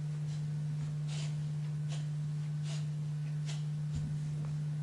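Steady low-pitched electrical hum on the recording, one unchanging tone and the loudest sound. Faint soft scuffs come about once a second, fitting someone walking slowly.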